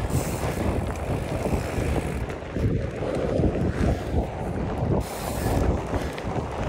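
Wind blowing across the microphone: a continuous low rumble that rises and falls unevenly.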